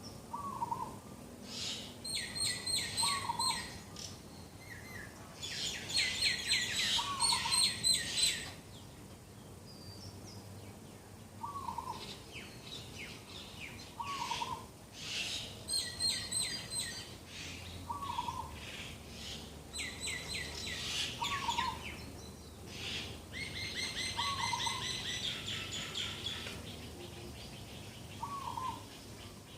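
Birds singing in the morning. One bird repeats a short, low, down-slurred call about every two seconds. Others sing bursts of rapid high notes lasting a few seconds each.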